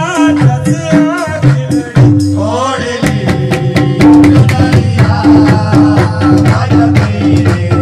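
Qawwali music: harmonium and tabla keeping a driving, steady beat under singing, with a sliding rise in pitch about two seconds in.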